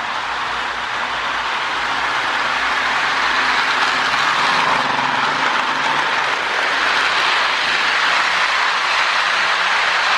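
Two Lionel MPC-era NW-2 switcher locomotives running together on toy train track: a steady whir of the electric motors and gears with the wheels rolling on the rails, growing a little louder about three seconds in.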